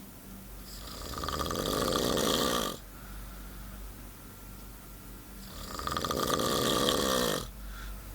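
Snoring: two long snores about five seconds apart. Each swells louder over about two seconds and then cuts off sharply.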